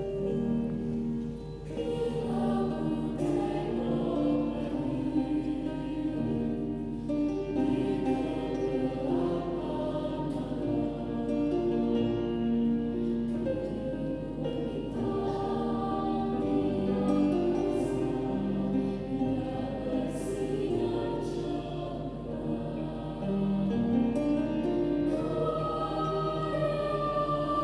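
Junior high school student choir singing in parts, with held notes that move from phrase to phrase.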